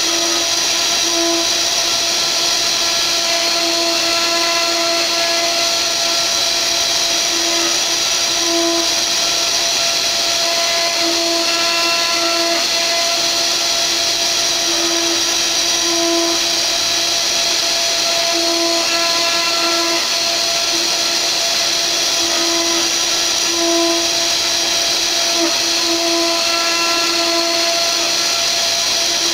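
Mini CNC router spindle running with a steady whine as its tapered carving bit mills a relief into wood, the cutting tone swelling and easing irregularly as the bit moves through the cut.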